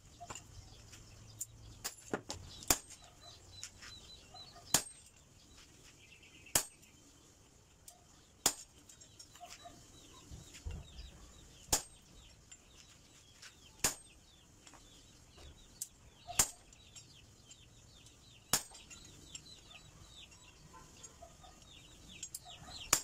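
Hammer blows on a hot-cut chisel, cutting a red-hot steel knife blank in half on an anvil: single sharp metallic strikes about every two seconds.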